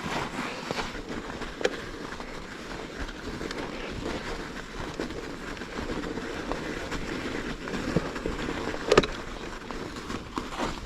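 Bicycle riding over crusted snow: steady tyre noise with scattered clicks and a sharp knock about nine seconds in.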